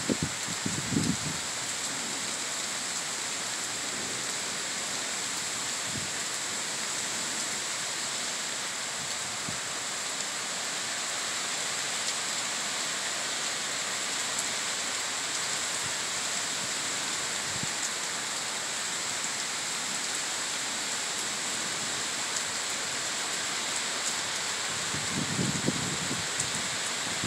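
Heavy thunderstorm rain pouring steadily, an even hiss, with a brief low rumble about a second in and again near the end.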